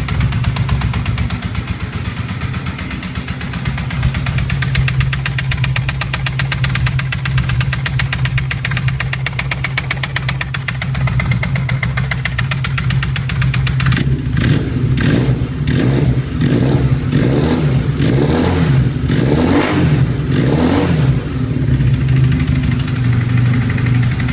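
Honda CBR 450SR's parallel-twin engine idling steadily, then revved in a series of quick throttle blips a little past halfway before settling back to idle. The engine makes a strange noise that the owner finds unchanged with the clutch lever pulled in.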